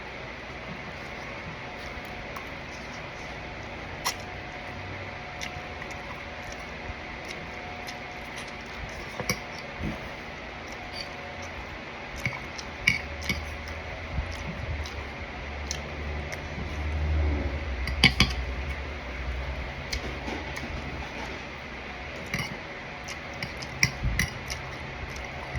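Eating at the table: scattered light clicks and taps of cutlery and dishes, with a low rumbling stretch about two-thirds of the way through, over a steady faint hum.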